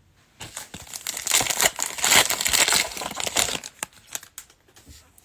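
A plastic trading-card pack wrapper being torn open and crumpled: a dense crinkling run for about three seconds, then a few light clicks as it dies away.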